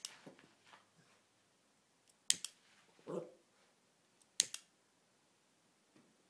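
A lighter being clicked three times, each strike a sharp double click, spaced about two seconds apart. A short, muffled sound comes about a second after the second strike.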